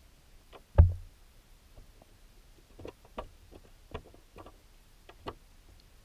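Underwater knocking picked up through the camera's waterproof housing: one loud, dull thump about a second in, then a scattered series of sharp clicks and knocks, like hard objects such as stones striking each other under water.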